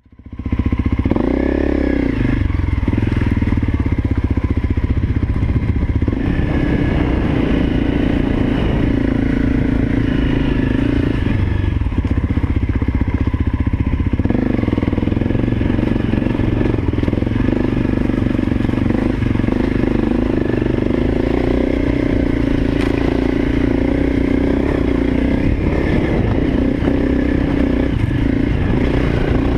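Honda CRF250L single-cylinder four-stroke dirt bike engine running under way, its pitch rising and falling with the throttle, over a steady low rumble.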